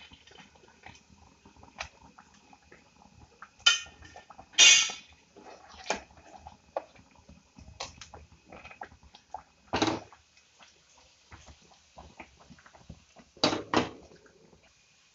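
Metal spoon stirring thick rice-and-dal khichdi in an aluminium pressure cooker, knocking and scraping against the pot several times.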